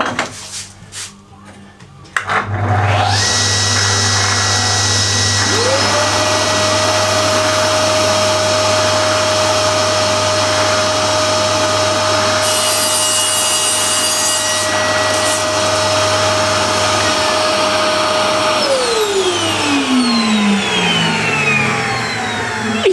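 A vacuum dust extractor starts up about two seconds in. A few seconds later the Holzmann TS200 table saw's motor spins up and runs with a steady whine, with a brief harsher hiss midway. Near the end the saw is switched off and its whine falls in pitch as the blade coasts down.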